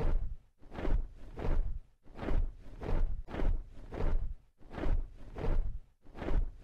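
Large wings flapping, as a sound effect: slow, regular airy whooshes, about two strokes a second.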